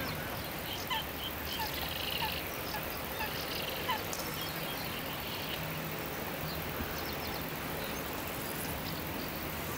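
Wetland birds calling: scattered short calls and chirps, most of them in the first four seconds, over a steady outdoor background.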